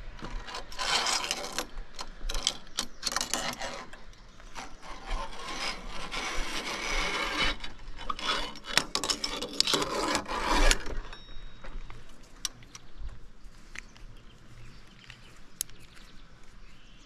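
Rough rubbing and scraping close to the microphone, in irregular stretches for about ten seconds, then a few faint clicks.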